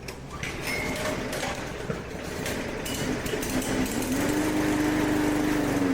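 Push mower's small engine running rough, popping, snapping, spitting and sputtering. It picks up and runs louder and steadier about four seconds in. The mechanic suspects ignition or a fouled spark plug rather than the carburetor.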